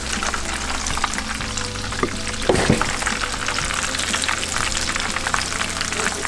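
Breaded fish pieces and onion slices deep-frying in hot oil, a steady crackling sizzle, while a metal slotted spoon stirs and lifts them through the oil. A brief knock stands out about two and a half seconds in.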